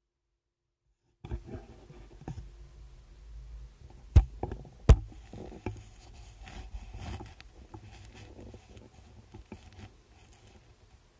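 Handling noise on a 360-degree camera's microphone as it sits on a man's head: hair rubbing and scratching against the camera, with scattered clicks and two sharp knocks about four and five seconds in. It starts about a second in.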